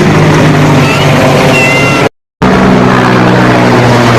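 Low-flying military helicopters, a loud, steady engine and rotor drone that cuts out briefly about two seconds in.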